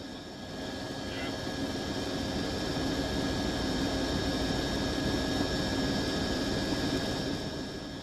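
Steady engine drone carrying several high, steady whining tones, growing louder over the first few seconds and easing off near the end.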